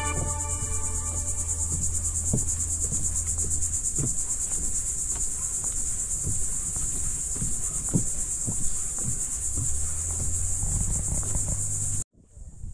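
Dense insect chorus: a steady, high-pitched buzzing trill that pulses rapidly. Under it are faint soft knocks, like footsteps on a wooden boardwalk. The sound cuts off suddenly near the end.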